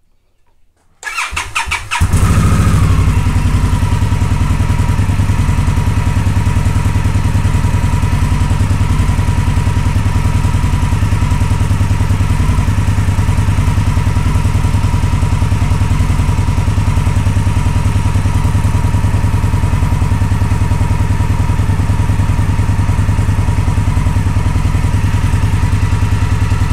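2016 Indian Scout Sixty's V-twin engine is cranked by its starter about a second in, catches, and then idles steadily with a fast, even low pulse. It is freshly filled with new oil after an oil change and is running well.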